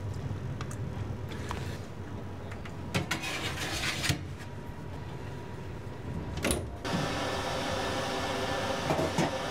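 Kitchen work with metal cookware: a steel gastronorm pan clatters as it is slid onto an oven rack, followed by a sharp metallic clank. After that a steady rushing hum sets in, with a couple of clinks near the end as a glass pot lid is lifted.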